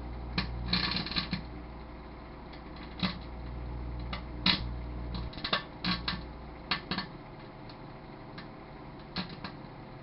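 Microwave oven humming while tinfoil on a CD arcs inside it, giving sharp irregular snaps and crackles, some in quick clusters. The low hum drops away about five seconds in while the snapping goes on.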